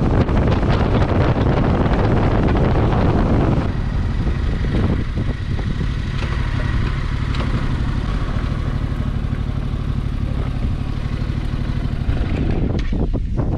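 Yamaha Tracer 7's parallel-twin engine running on the move, under heavy wind rush on the microphone. The wind rush eases about four seconds in, leaving the engine's steady low note.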